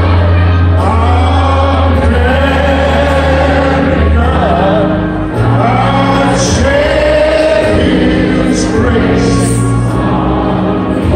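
A man singing solo over a recorded instrumental accompaniment with long, steady bass notes.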